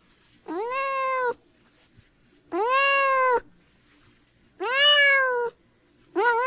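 A cat meowing: four drawn-out meows about two seconds apart, each rising and then falling in pitch.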